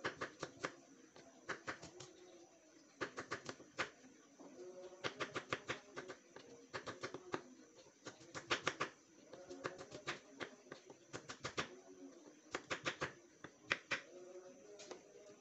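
Kitchen knife chopping shallots and garlic on a wooden cutting board: quick taps in bursts of several, with short pauses between bursts.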